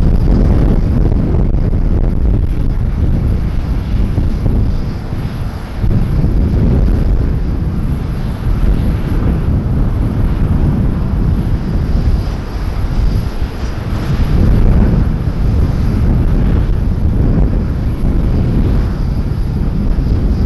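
Airliner's engines making a loud, steady rumble that swells and eases as it flies low on approach to land.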